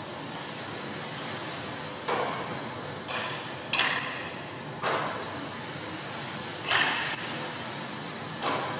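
Steady hiss of moving air, broken by sharp snapping rustles of a large thin translucent plastic sheet as it billows, about seven of them at irregular intervals.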